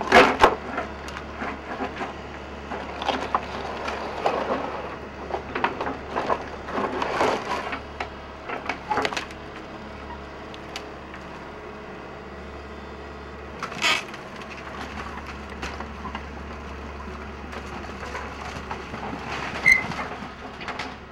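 Wood and debris cracking and clattering in irregular knocks and crashes, with sharp loud hits at the start, about 14 seconds in and near the end, over a steady low hum.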